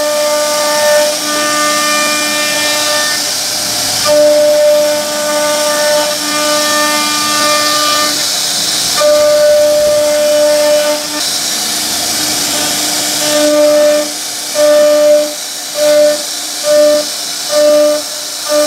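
Background music of held, whistle-like notes that change pitch every second or two, over a steady high hiss. In the last few seconds it turns into a pulse of short notes, about one a second.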